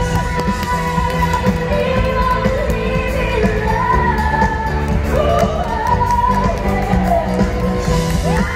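Pop song with a singer over a steady beat, played by a live band and heard over the sound system of a large hall.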